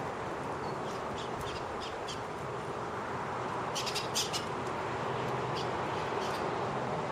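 A few short, high bird chirps in small clusters over a steady outdoor background hiss.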